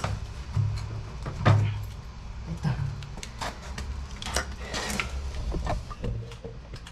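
Irregular clicks, knocks and light clatter of black plastic drain pipe and fittings being handled and fitted together, with no steady rhythm.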